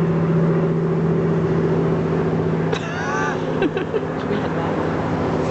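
A car engine idling with a steady low hum. About three seconds in, a brief run of high, wavering notes sounds over it, followed by a few clicks.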